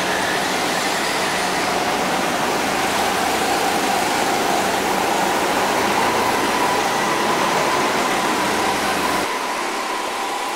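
Racing go-karts lapping an indoor concrete track: a steady wash of kart noise with a faint whine, one kart passing close about six seconds in.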